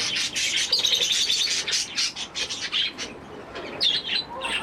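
A flock of small aviary birds chirping rapidly and continuously, many short high calls overlapping.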